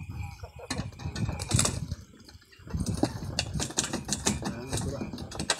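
Irregular clatter of knocks and clicks as a mesh net of live rice eels is handled and tipped into a plastic crate, briefly pausing about two seconds in.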